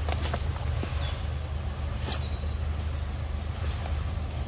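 A steady chorus of insects, a high constant buzzing from the surrounding forest, over a steady low rumble. There are a couple of faint clicks, one near the start and one about two seconds in.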